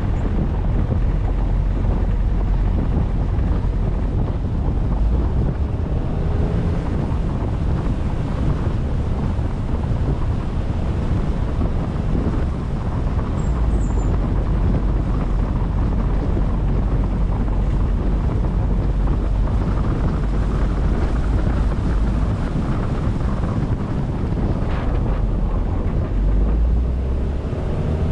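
Wind buffeting the microphone: a loud low rumble that swells and drops unevenly in gusts.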